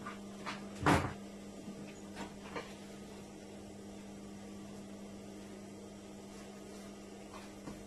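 Steady electrical hum, with rustling and light knocks as a blazer's fabric is shifted and smoothed on a sewing-machine table; the loudest, a brief thump, comes about a second in.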